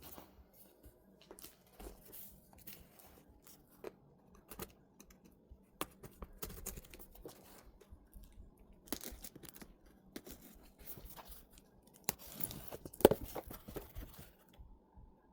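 Shipping packaging being torn open and handled: irregular tearing, rustling and sharp clicks, loudest about thirteen seconds in.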